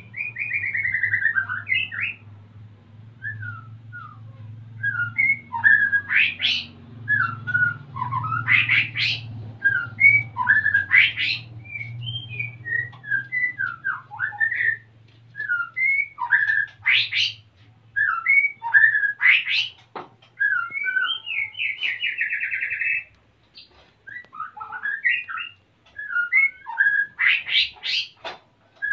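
White-rumped shama singing a varied run of short whistled phrases, chirps and a rattling trill, with hardly a pause; the male is in breeding condition and calling for a mate.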